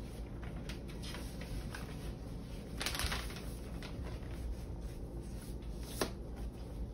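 Paper inner sleeve rustling as a vinyl LP is handled and slid back into it, with a louder rustle about three seconds in and a short sharp tap near the end.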